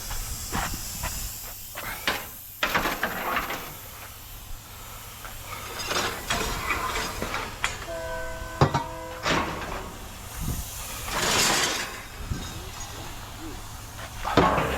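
Scrap metal being handled: scattered clanks and knocks over a steady hiss. A short horn-like tone sounds about eight seconds in, and a louder hiss comes around eleven seconds.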